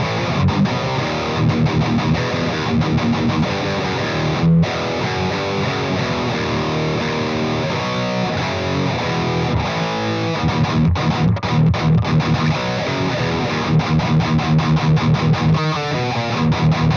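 Electric guitar tuned to E flat played through a Splawn Quickrod 100 amp on its highest-gain third-gear overdrive setting, into a 1x12 cabinet with Celestion Greenback speakers: heavily distorted riffing with chugging low notes and a few short stops, showing loads of gain and a big low end.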